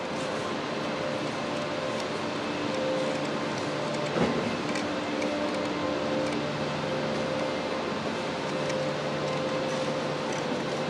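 Steady mechanical hum with several held tones over a background hiss, and a single brief thump about four seconds in.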